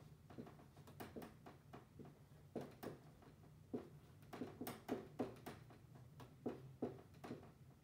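Dry-erase marker writing on a whiteboard: a string of short, irregular taps and strokes as figures are written. A faint steady low hum runs underneath.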